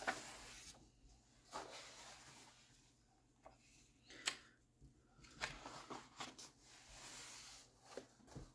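Faint handling of paper as the pages of a paperback colouring book are turned and pressed flat by hand: soft rustles and several short, sharp page flicks, the sharpest about four seconds in.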